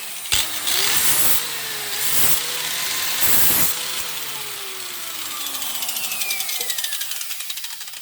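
Angle grinder with a worn, fine sanding disc running, with three short louder grinding passes as the disc touches the edge of a scissor blade held in a vise. About halfway through it is switched off, and its pitch falls steadily as it winds down.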